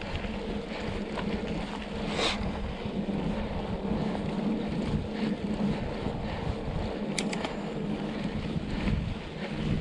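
Wind buffeting the microphone over the rumble of a mountain bike rolling on a dirt road, with a steady low hum underneath. A few sharp clicks come about seven seconds in.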